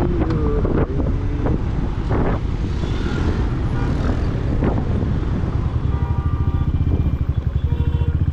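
Motor vehicle engine running steadily while driving. From about five and a half seconds in, a rapid, even pulsing of the engine's beats comes through.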